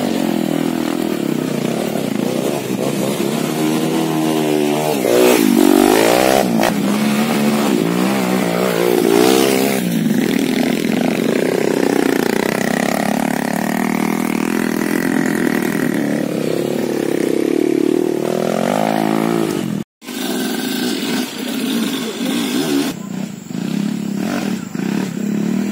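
Trail motorcycle engine revving, its pitch rising and falling again and again with the throttle. The sound cuts off for an instant about twenty seconds in, after which the engine noise carries on more quietly.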